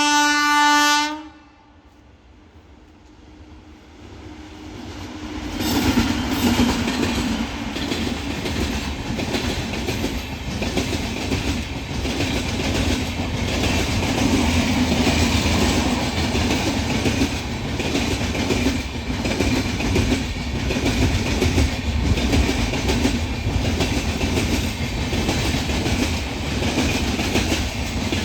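Shrill horn of an Indian electric locomotive sounding one steady note that cuts off about a second in. After a brief lull, an electric train comes up and passes close at speed, its wheels clattering over rail joints.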